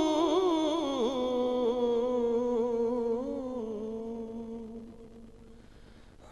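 A man's voice holding one long sung note of a naat, wavering slightly and stepping down in pitch a couple of times, then fading away about five seconds in.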